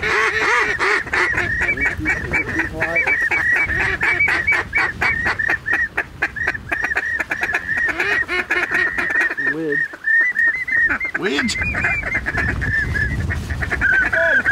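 Rapid, continuous goose honks and clucks, several a second, with a lower drawn-out falling call twice near the middle. Wind rumbles on the microphone underneath.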